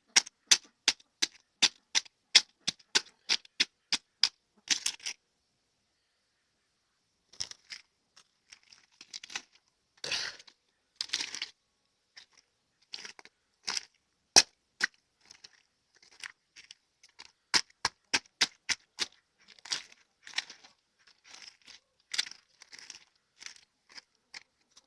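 Ducks pecking as they eat egg, their bills clicking rapidly at about four pecks a second. The pecking stops about five seconds in, then resumes more irregularly with crunchy scraping.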